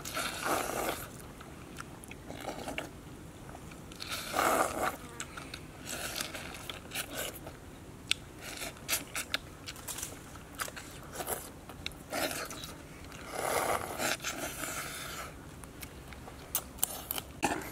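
Two people eating by hand from coconut-shell bowls, with irregular chewing and crunching, sharp clicks and a few longer noisy bursts.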